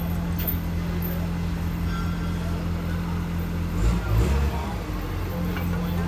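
Komatsu D51PX bulldozer's diesel engine running steadily at a low, even pitch. About two-thirds of the way through, its note shifts and briefly grows louder, then settles back to the steady run.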